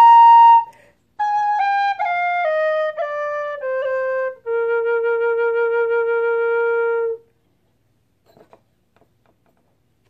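Anak high Bb Irish tin whistle playing: a held high note, then a stepwise descending scale of short notes ending on a long held low note, after which it stops.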